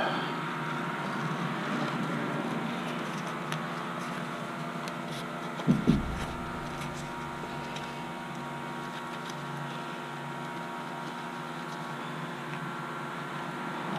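Steady machine hum with a few faint ticks, and two short dull thumps close together about six seconds in.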